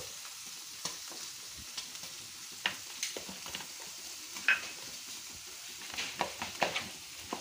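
Hands rubbing spice paste into raw rib meat on a steel plate: wet, sticky smacks and taps over a steady faint hiss, with a quick cluster of them near the end.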